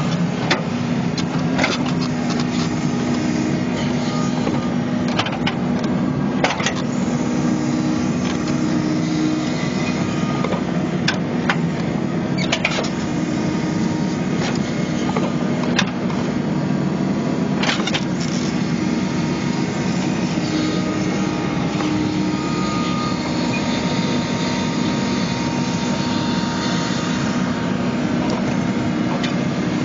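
New Holland Kobelco E80B midi excavator's diesel engine running steadily under working load while it digs, with a handful of sharp knocks and clanks from the digging gear.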